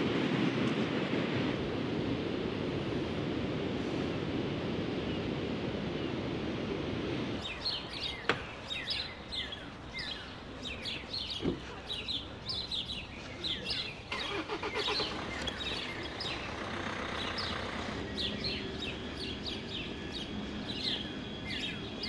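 Heavy storm surf breaking against the harbour wall as a steady rush of noise. About seven seconds in it gives way abruptly to small birds chirping and twittering over and over.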